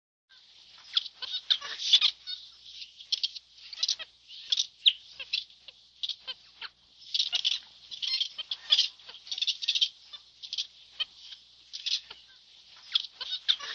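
Birds chirping and chattering: many short, high calls overlapping in a quick, uneven stream.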